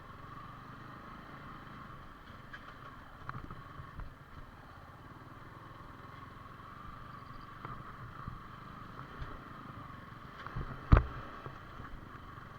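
Yamaha R15 V4 single-cylinder motorcycle engine running as the bike rides over a rough, stony track, with scattered knocks and one sharp, loud thump near the end.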